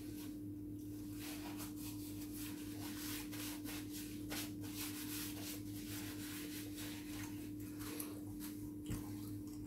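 Paper napkin rustling and rubbing in short, irregular strokes as hands are wiped, over a steady low electrical hum.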